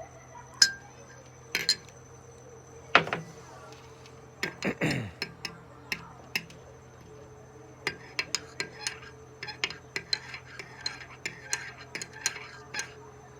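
A spoon and dishes clinking: a few sharp knocks, a short ringing clatter about five seconds in, then a run of quick light clinks like a spoon stirring in a mug.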